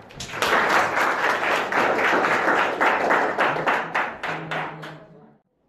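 Applause: dense clapping that thins to scattered claps and dies away about five seconds in.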